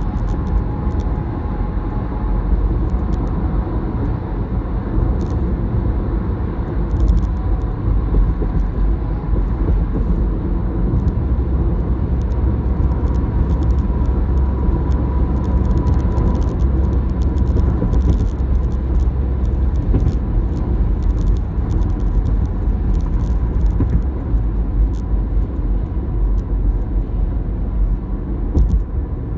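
Steady road noise inside a moving car: a low rumble of tyres and engine at freeway speed, with faint light ticking over it.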